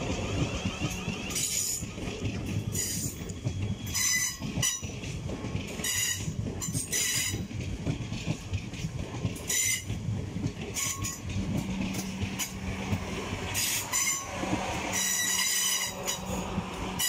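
A pair of coupled Class 444 electric multiple units departing and rolling past, with repeated short bursts of high-pitched wheel squeal and clatter from the wheels over the rails. A steady low hum joins in about eleven seconds in.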